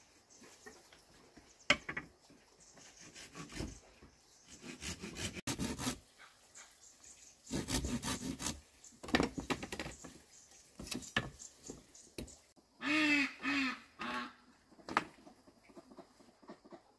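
Irregular knocking and rustling, and a duck quacking twice about thirteen seconds in.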